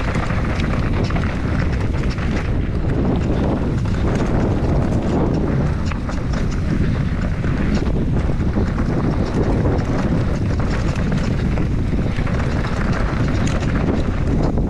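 Enduro mountain bike descending a dirt trail: wind rushing over the microphone and tyres rolling over the ground, with frequent small clicks and clatters throughout.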